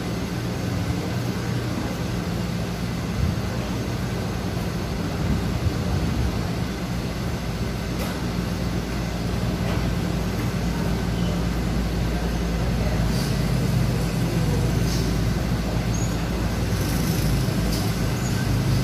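Steady low hum and rumble of background noise, with a few faint light clicks.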